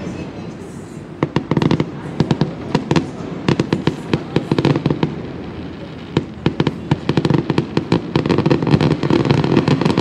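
Fireworks going off: waves of rapid sharp cracks and pops, thinning briefly before coming back denser, over a continuous low rumble.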